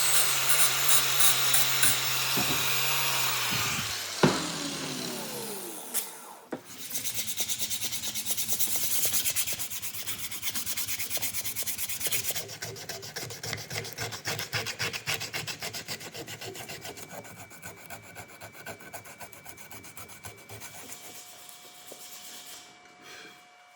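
A power tool runs, then is switched off about four seconds in and spins down. This is followed by rapid, even hand-rasping strokes on the wooden knife handle, which grow fainter toward the end.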